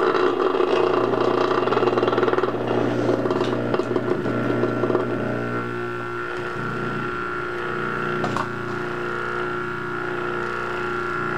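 Opened-up GM Delco hermetic reciprocating air-conditioner compressor running on 110-volt mains outside its sealed shell: a steady electric motor hum with the piston's mechanical clatter. It is rougher and louder for the first five seconds or so, then settles steadier.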